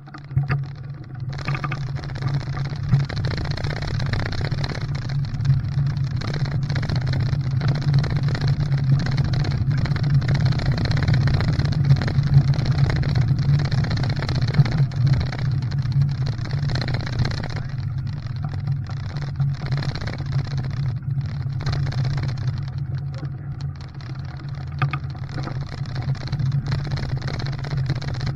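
Car running steadily while driving: a low, even engine drone with road noise.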